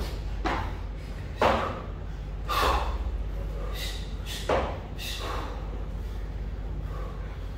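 A kettlebell lifter breathing hard, with short, forceful breaths about once a second while he holds the kettlebell racked against his chest.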